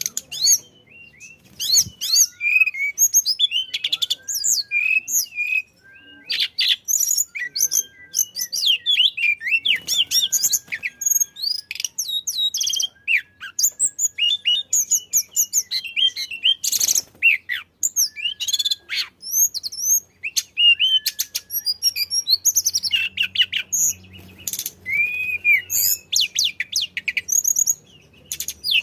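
A tledekan songbird singing steadily, a rapid, varied stream of chirps, trills and short whistled notes with only brief pauses.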